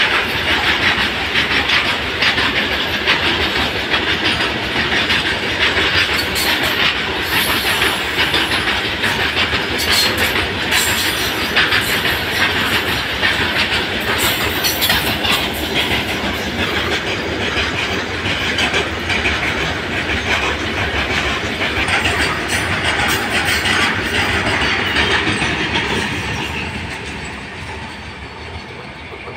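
A freight train of BOXN HS open wagons rolling past close by, steel wheels clattering over rail joints with a high squeal at times. The sound fades away near the end as the last wagon and brake van go by.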